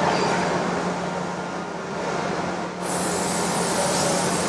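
OD (cylindrical) grinder running steadily: a constant motor hum under a broad hiss, which turns brighter about three seconds in.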